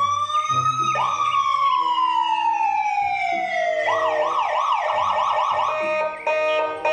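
Ambulance electronic siren: a wail that rises and then falls slowly over a few seconds, switching about halfway to a fast yelp of about four cycles a second, then holding a steady tone near the end.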